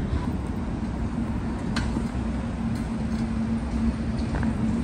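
Low rumble of road traffic, with a steady low hum coming in about halfway through and a brief click about two seconds in.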